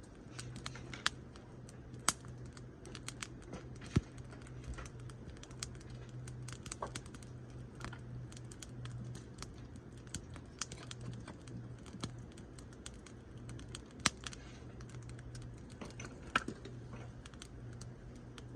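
Wood campfire crackling with irregular sharp pops, over a steady low hum.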